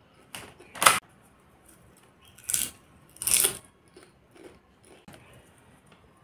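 Foil snack pouch of popcorn crinkling as it is handled: a few short rustling bursts, the loudest about a second in and two more about halfway through, then quieter rustles.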